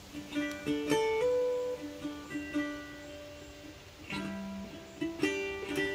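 Background music on an acoustic guitar: single picked notes ringing out, with a strummed chord about a second in and another near the end.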